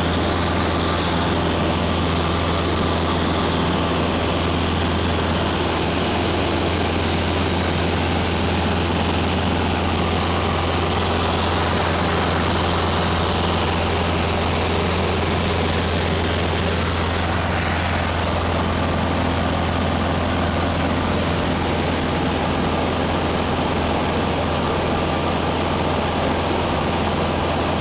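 Cessna 150's Continental O-200 four-cylinder engine and propeller droning steadily in flight, heard from inside the cabin as a constant low hum under an even rushing noise.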